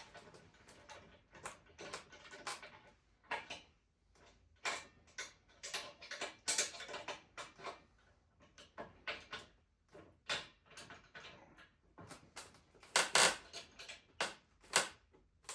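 Metal clicks and clinks of a 17 mm wrench tightening a wheel bolt, irregular, with a louder cluster about 13 seconds in and again near the end.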